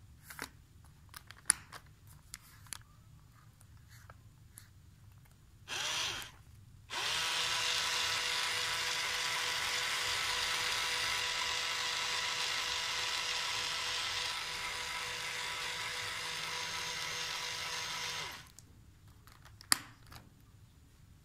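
Small battery-powered electric motor of a cardboard day-and-night model whirring steadily after a brief first burst, running for about eleven seconds, a little quieter in the later part, then stopping. Light clicks of handling come before it, and one sharp click comes near the end.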